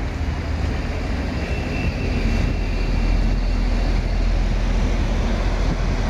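Street traffic with an articulated city bus driving past close by, a steady low rumble throughout.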